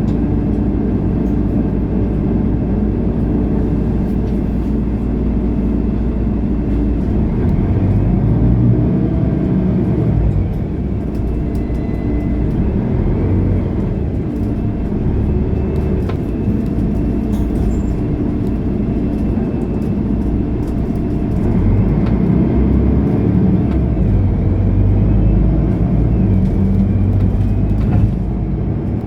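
Mercedes-Benz O530 Citaro Ü bus on the move, its diesel engine's note rising and falling in pitch as the bus speeds up and slows, louder about a third of the way in and again near the end, with small clicks and rattles.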